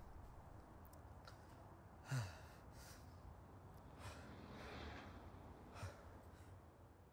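A person breathing quietly, with a sigh about two seconds in whose voice drops in pitch, and softer breaths later on; the sound fades out at the end.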